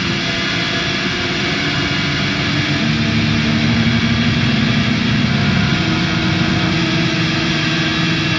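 Drone/noise music: a dense, steady wall of hiss and rumble with low held tones, one fading out about halfway through and a slightly higher one taking over.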